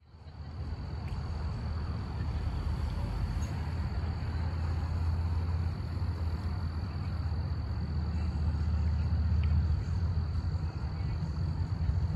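Outdoor night ambience: a steady low rumble, with a thin, steady high drone above it.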